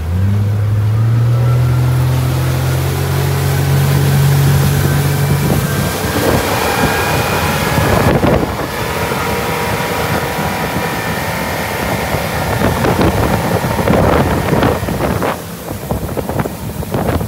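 Yamaha 90 outboard motor running under way, its note rising over the first six seconds as it revs up, then swamped by wind buffeting the microphone and rushing water.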